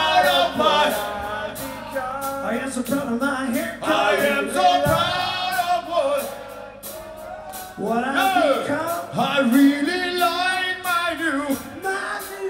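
Live rock band playing: sung vocal melody over electric guitar, bass and drums.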